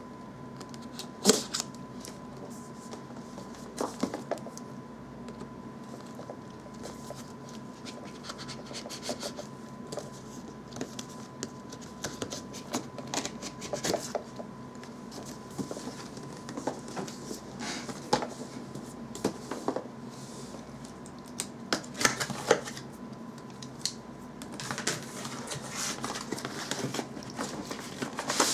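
A retail box being opened and its packaging handled: scattered scratching, sliding and clicking noises, busier near the end, over a faint steady hum.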